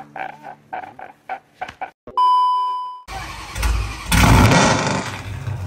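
A man's sobbing from a meme clip, then a steady beep for about a second. About three seconds in, a Chrysler 300C's 5.7 Hemi V8 with a stage 2 Comp cam and long-tube headers fires up loudly on its first start after the cam install.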